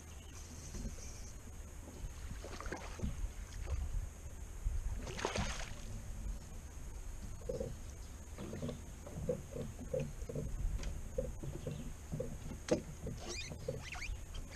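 Handling noise on a flats skiff's bow: a steady low rumble throughout, a brief rushing noise about five seconds in, then a run of short, irregular knocks on the boat while the angler works a hooked fish.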